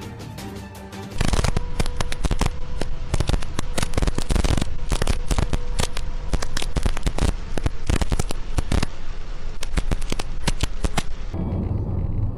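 Heavy rain pelting a car's windshield and roof: a loud, dense, irregular crackle of hits that starts suddenly about a second in and cuts off near the end, giving way to a low road rumble. A little music plays before the rain starts.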